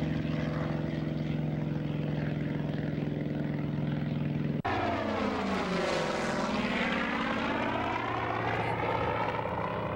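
Grumman F8F Bearcat's Pratt & Whitney R-2800 radial engine at takeoff power, a steady deep drone as the fighter lifts off. About halfway through the sound cuts abruptly, and the engine comes back with a sweeping, phasing tone as the aircraft passes and climbs away.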